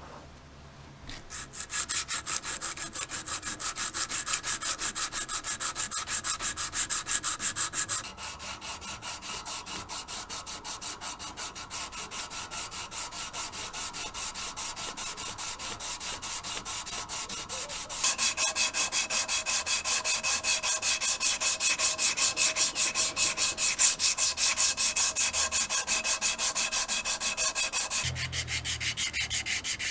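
Sandpaper rubbed by hand over a painted drill part in quick, even back-and-forth strokes, sanding off the old paint. Its loudness shifts a few times.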